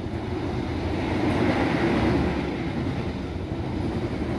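Carriages of the Mutiara Selatan passenger train rushing past a train window, heard from inside the other train: a steady rumble and rush that swells about halfway through.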